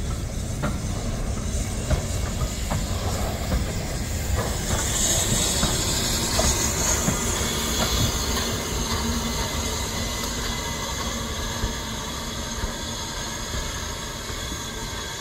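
Steam train moving past: a steady rumble with wheels clicking over rail joints, and a loud hiss of steam from the locomotive about five seconds in. The sound then fades slowly as the train draws away.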